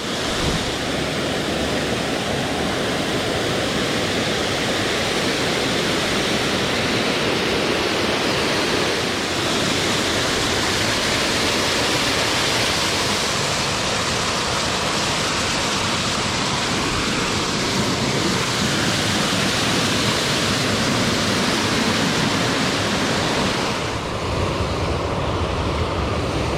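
Rushing water of a small stream and waterfall, a steady, even roar of white water. About 24 seconds in it becomes deeper and less hissy.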